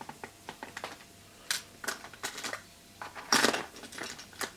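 Small plastic connector parts and metal terminal pins clicking and rattling as they are handled and sorted. The clicks come in an irregular run, with a louder clatter about three and a half seconds in.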